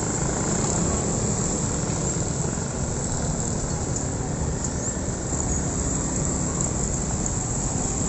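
Steady road traffic noise from motorcycles and scooters running and creeping over a rough railway crossing.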